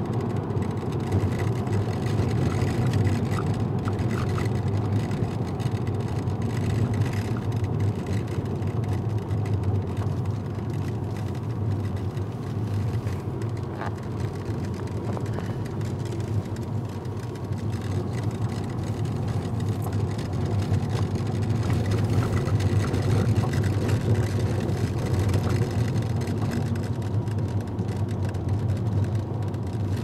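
Steady car noise heard from inside the cabin while driving: engine and tyre rumble on a mountain road, low and even throughout.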